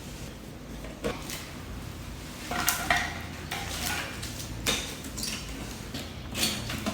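Scattered knocks and clinks of parts and tools being handled while a TV is taken apart, about one every second, one with a short metallic ring about three seconds in.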